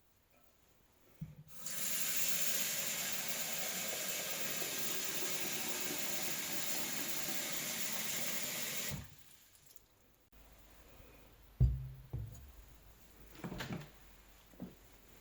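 Kitchen tap running steadily for about seven seconds, then shut off. A couple of seconds later comes a single loud thud, followed by a few lighter knocks.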